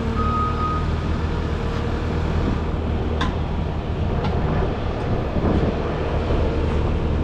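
A heavy machine's engine running steadily, its reversing beeper sounding at the start and stopping about a second in. A few sharp knocks come partway through.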